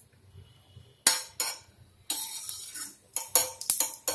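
Steel spoon scraping and clinking against a tawa while stirring cumin seeds frying in a little oil. There are two sharp clinks about a second in, a longer scrape around two seconds, and a quick run of clinks near the end.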